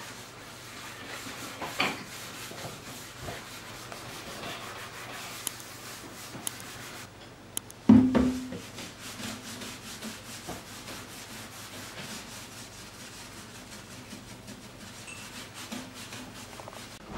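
Kitchen sponge scrubbing the enamel top of a gas stove and then the inside of an oven door, a steady rubbing. A sharp knock comes about two seconds in, and a louder knock with a short ring about eight seconds in.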